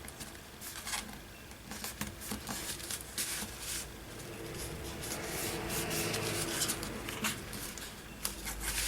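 Paper rustling and rubbing as a glued, folded paper page is slid into place and pressed down, with small scattered clicks and a longer stretch of rubbing past the middle.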